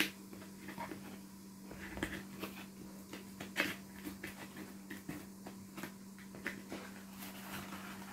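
Cardboard parcel being opened by hand: scissors cutting packing tape and the flap being pried and scraped, heard as a scatter of light clicks, snips and scrapes. A faint steady hum runs underneath.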